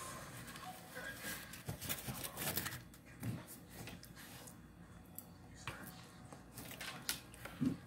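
Quiet eating sounds: a plastic fork scraping and tapping a paper plate of rice and black beans, with chewing, heard as scattered soft clicks and scrapes.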